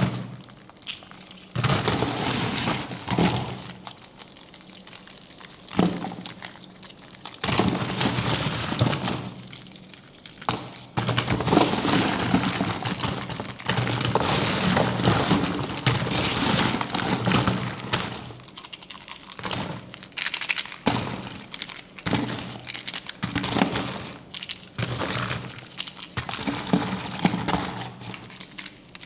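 Wrappers and packaging being crinkled, torn and cracked open by hand, in irregular spells of close crackling and snapping with brief pauses.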